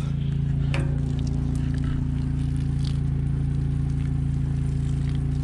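Steady drone of the generator and 110-volt pumps running a homemade maple-sap reverse osmosis system, with a small click about a second in.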